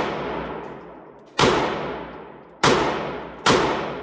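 Staccato XC pistol firing three shots, coming quicker each time (about a second and a quarter apart, then under a second, then about half a second), with a fourth right at the very end. Each sharp crack rings off in a long echo inside an indoor range booth.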